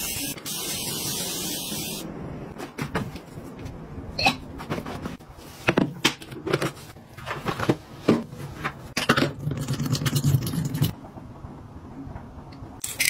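A continuous-mist trigger spray bottle hissing out a fine spray for about the first two seconds. Then a string of sharp plastic clicks and knocks as a collapsible portable washing machine is pulled open and handled.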